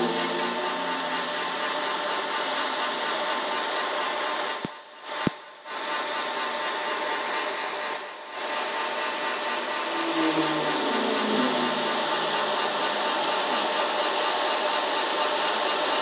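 Forced air from a blower rushing through a charcoal forge fire: a steady hiss, broken by short cuts about five and eight seconds in.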